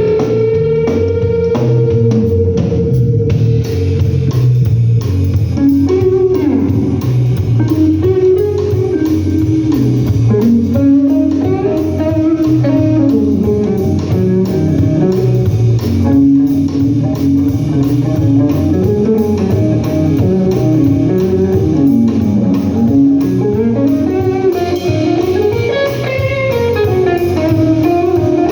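Live blues band playing an instrumental passage: a guitar plays a lead line with string bends over bass guitar, opening on a long held note.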